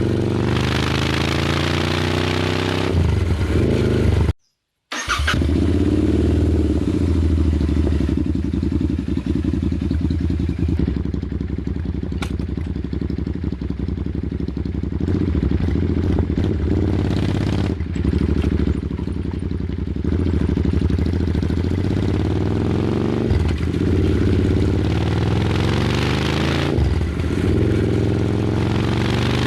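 Royal Enfield Super Meteor 650's 648 cc parallel-twin engine running at idle with a steady beat. It is revved in the first few seconds, blipped a couple of times midway, and revved again near the end. The sound cuts out completely for under a second about four seconds in.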